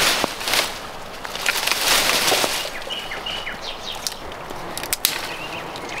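Dry brushwood and undergrowth rustling and crackling as branches are pulled out by hand, with two sharp cracks about five seconds in. Small birds chirp in the second half.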